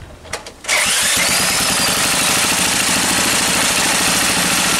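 A small stationary engine, spun over with an electric drill on its flywheel, catches under a second in and runs steadily.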